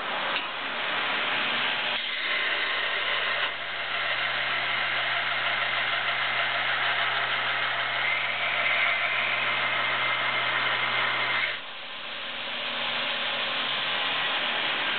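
Homemade 2x72 belt grinder, driven by a 1.5 hp three-phase motor, running and grinding the side of a quarter-inch round steel bar against the belt, throwing sparks. The heavier grinding sound starts about two seconds in and cuts off suddenly near twelve seconds, after which the belt runs on without load.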